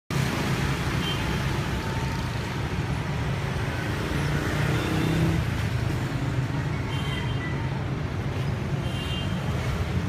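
Street traffic noise: a steady hum of passing road vehicles, with no single vehicle standing out.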